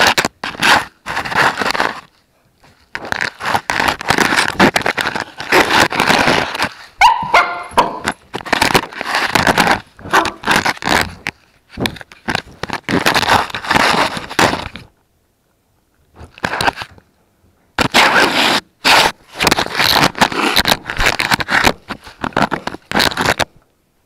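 Puppies chewing and mouthing an off-brand action camera right against its microphone: loud bursts of scraping and crunching broken by short pauses, with a brief whine about seven seconds in.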